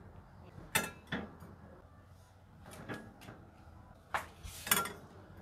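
A metal kitchen utensil clinking against a wok and a ceramic plate as boiled prawns are lifted out and set down: about six separate sharp clinks, the loudest near the end.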